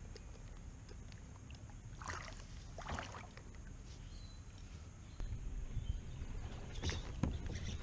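Light clicks and scrapes of fishing tackle being handled in a kayak, over faint quiet outdoor ambience. About five seconds in, a low steady rumble comes in.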